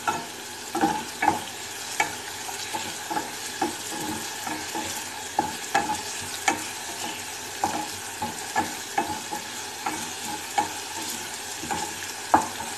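Wooden spatula stirring onions in a simmering sweet oyster sauce in a pan, knocking and scraping against the pan about once or twice a second, over a steady sizzle of the sauce cooking down toward a gravy. One knock near the end is louder than the rest.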